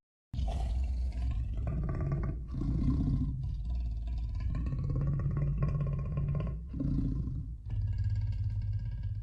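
Deep, rumbling big-cat style growl of a giant lion-like monster, a designed creature sound effect. It starts just after a moment of silence and runs on in several long phrases with brief breaks between them.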